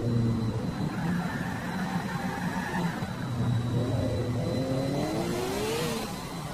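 Race car engine sound revving up and down, climbing in pitch from about four seconds in and dropping off just before the end.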